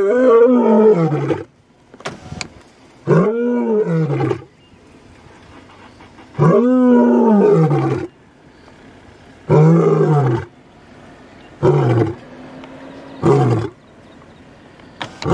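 Male lion roaring: a bout of about seven deep calls that each rise and fall in pitch, the first four long and moaning, the last three shorter grunts.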